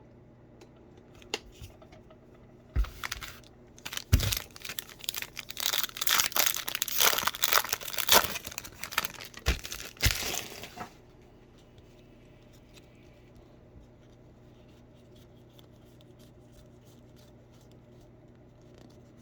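Trading-card pack wrapper being torn open and crinkled: several seconds of crackling and tearing with sharp sudden peaks, ending about eleven seconds in, then only faint ticks.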